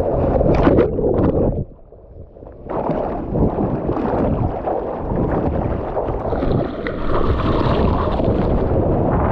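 Water rushing and splashing around a surfer's GoPro, with wind buffeting the microphone. About two seconds in, the sound briefly drops and goes muffled for about a second, then comes back.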